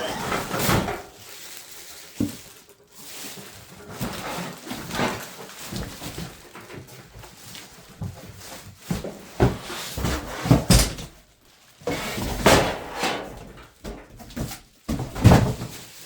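Unboxing a heater: a cardboard box and its packing being handled and pulled apart, with irregular rustling and scraping and a few knocks and thumps.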